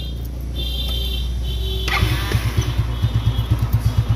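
Yamaha Nouvo LX scooter's single-cylinder four-stroke engine starting about two seconds in, then idling with a rapid, even pulse. It runs smoothly with no rattle now that the broken starter-clutch gear bearing has been replaced.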